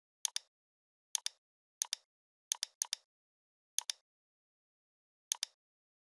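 Computer mouse clicks, seven of them spaced irregularly, each a quick double tick of button press and release, with dead silence between.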